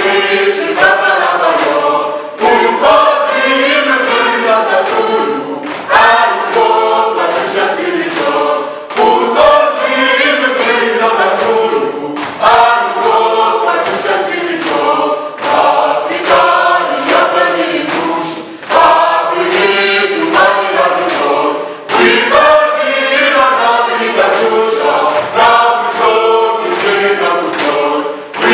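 Mixed youth choir singing a song in Russian together, with hand claps through the singing.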